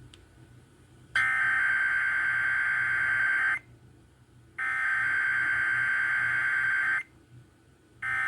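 Emergency Alert System SAME header bursts: a warbling digital data tone about two and a half seconds long, sent twice with about a second's gap, and starting a third time near the end. These repeated headers mark the start of an EAS test transmission.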